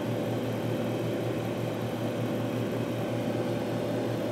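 Steady electrical hum and fan-like whir from the running amplifier and test gear on the bench, with the amplifier driving a 20 Hz test tone into a dummy load just below clipping.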